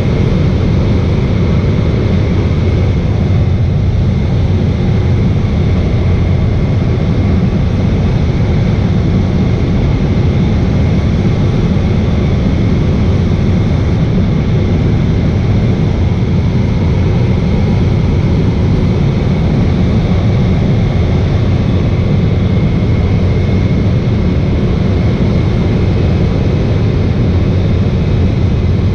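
Floatplane engine and propeller droning steadily in level flight, loud and unchanging throughout.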